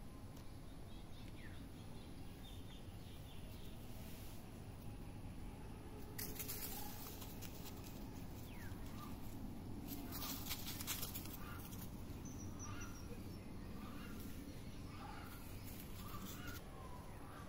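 Birds calling outdoors: a string of short calls, about one a second, through the second half. Two brief bursts of rustling noise come about a third and about halfway through.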